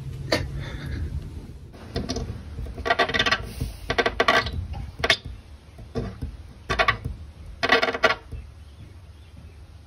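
Golden retriever puppy biting and mouthing at a glass door, its teeth clicking and squeaking on the glass in a string of short bursts.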